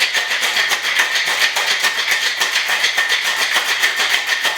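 Ice cubes rattling inside a Boston shaker as a cocktail is shaken hard, in a rapid even rhythm of about eight rattles a second.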